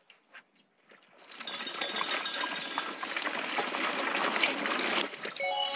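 Raw potato sticks tipped into a pot of hot oil for deep-frying, the oil bursting into a loud, steady sizzle about a second in. Music comes in near the end.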